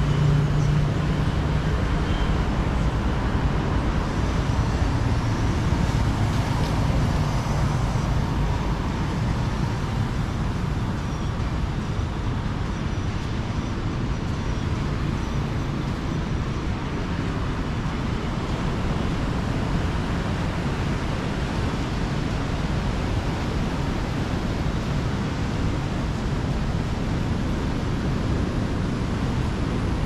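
Steady rushing noise of surf and wind on the beach, with a motor vehicle's low engine hum that fades away over the first half.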